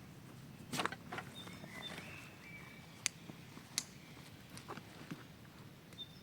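Footsteps on the forest floor: a handful of sharp, irregularly spaced steps. Short, high, thin bird whistles come between about one and three seconds in, over quiet forest ambience.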